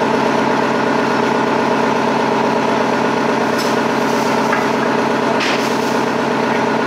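Heavy truck engine idling steadily, a constant low running hum close by.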